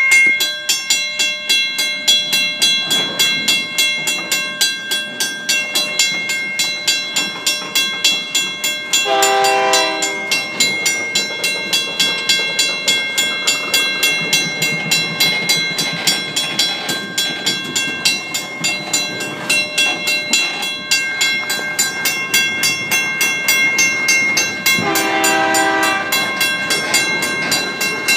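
WCH mechanical grade-crossing bell ringing in steady, rapid strikes over the rumble and wheel clatter of freight cars rolling slowly past. A train horn sounds briefly twice, about nine seconds in and again near the end.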